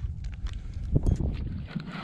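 Low rumble of wind on the microphone, with a few faint clicks and knocks from a spinning rod and reel being handled.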